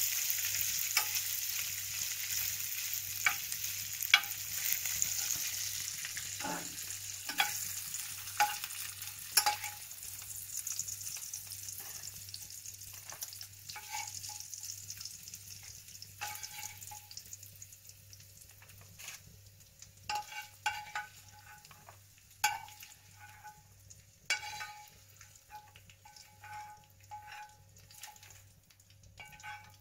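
Bacon sizzling in a frying pan while being stirred and scraped with a fork. The sizzle fades away over the first half as the pan comes off the heat, leaving short metallic clinks of the fork against the pan.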